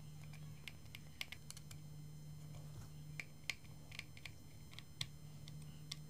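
Faint, irregular small clicks and ticks of a screwdriver turning screws into the lens-cover frame of an LED street light, over a faint steady low hum.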